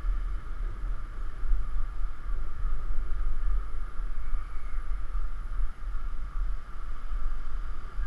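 Wind buffeting a GoPro's microphone during a bike ride, a gusting low rumble with a steady hiss above it.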